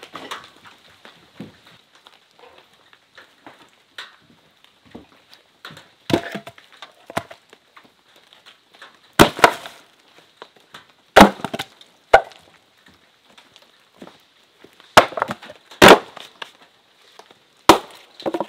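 Firewood being split with an axe on a wooden chopping block: separate sharp woody cracks and knocks a second or more apart, the loudest strikes in the second half.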